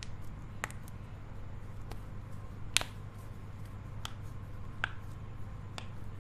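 Joints being cracked: about half a dozen sharp, short pops spaced irregularly, the loudest a little under three seconds in.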